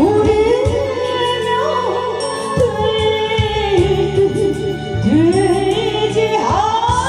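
A woman singing a Korean song into a microphone over instrumental accompaniment, her sustained notes wavering with vibrato.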